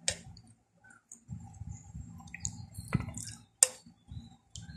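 A wooden spoon scraping a thick, wet spice paste off a bowl and dropping it onto chicken pieces in a clay pot. Rough scraping runs for about two seconds, with a few sharp knocks of the spoon, the loudest near the end.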